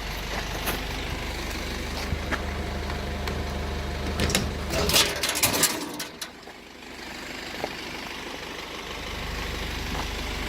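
Hino truck engine idling with a steady low hum. A burst of clattering and knocking comes about four to six seconds in.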